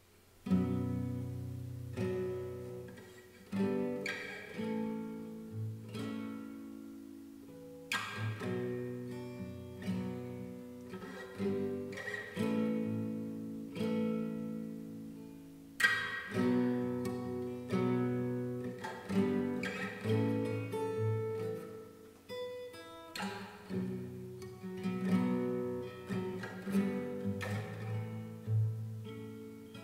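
Background music: acoustic guitar, plucked notes and chords ringing out, starting about half a second in.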